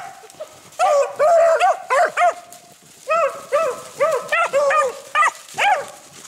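A pack of beagles baying while trailing a rabbit's scent: quick yelps that rise and fall, several voices overlapping, and a few longer held bawls. There is a short pause about halfway through.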